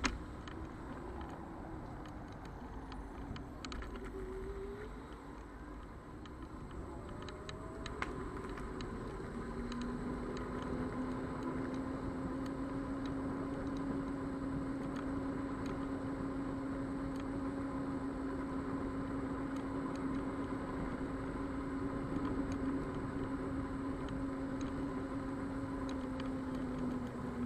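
Xiaomi Mijia M365 electric scooter riding: its hub motor gives a whine that rises and falls briefly in the first few seconds, then holds a steady pitch at cruising speed, over tyre and wind rumble. A sharp knock sounds at the start and another about eight seconds in, with light clicks from bumps in the surface.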